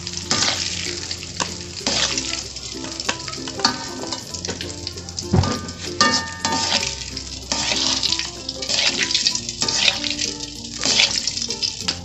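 Fried anchovies sizzling in hot oil in an aluminium wok. A wire-mesh strainer and metal tongs clink and scrape against the pan as the cooked fish are scooped out of the oil.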